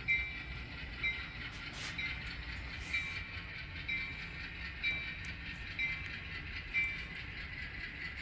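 Sound-equipped HO scale ALCO RS3 model locomotive with its bell ringing about once a second over a low diesel engine sound, and a couple of short air hisses about two and three seconds in.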